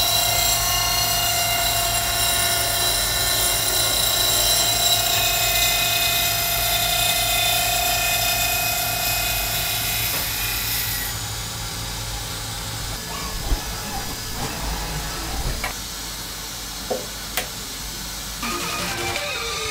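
Slitting saw blade in a CNC machining centre's spindle cutting dry through 6082 aluminium to part off the workpiece: a steady high-pitched cutting whine with several held tones. About halfway through the cut eases off and the sound drops to a quieter machine hum, with a few sharp clicks near the end.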